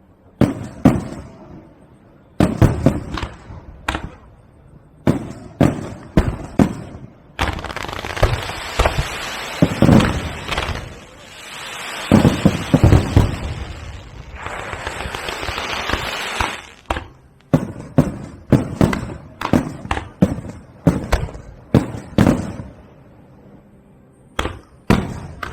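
Aerial fireworks going off: a string of sharp bursts, with long stretches of dense crackling in the middle.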